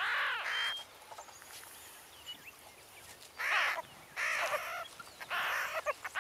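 Meerkat pups giving short squealing calls as they wrestle: one right at the start, then after a lull of about two seconds three more, about a second apart.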